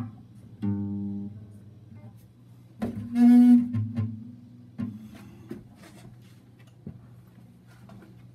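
Sparse instrumental music: two held low notes on a string instrument, one about a second in and a longer one about three seconds in, with soft taps and clicks between them.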